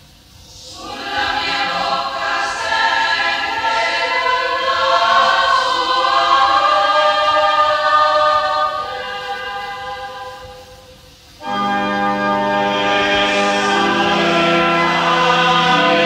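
Choir of women's voices in three equal parts singing a sacred Italian hymn. One phrase swells and dies away about two thirds of the way through, then a new phrase enters suddenly over held organ chords.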